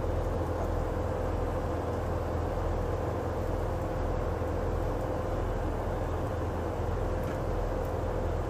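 Steady low machinery drone with a constant mid-pitched hum running through it, typical of a ship's engines and machinery heard from inside the vessel.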